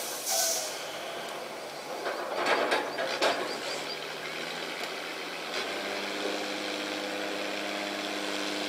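A few loud knocks, then about halfway an engine hum sets in and runs steadily.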